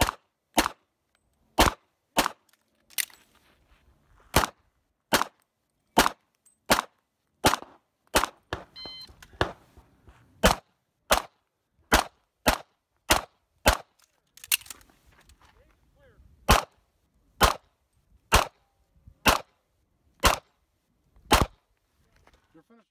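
Semi-automatic pistol fired about two dozen times, roughly one shot a second with a few quicker pairs and a longer gap or two, in a practical shooting stage; a few faint clicks near the end.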